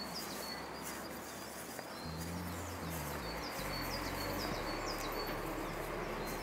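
Small birds chirping, short high calls a few a second, over a steady outdoor hiss. Low music notes come in about two seconds in.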